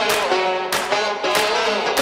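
Background rock music: guitar over a steady drum beat.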